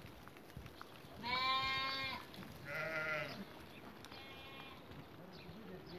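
Sheep bleating three times, one call after another, each lasting about a second; the third is fainter.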